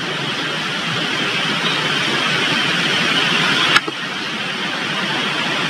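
Steady rushing background noise with no pitch in it, growing slightly louder. It breaks off for an instant about four seconds in, as if the audio dropped out.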